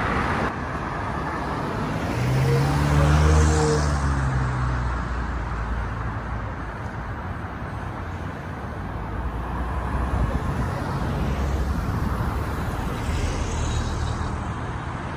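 Steady city street traffic. About two to four seconds in a vehicle passes close by, its engine hum the loudest sound, and another passes near the end.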